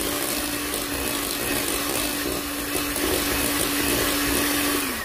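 Electric hand mixer running at a steady speed, its beaters churning cake batter in a glass bowl, with a steady motor hum; it cuts off right at the end.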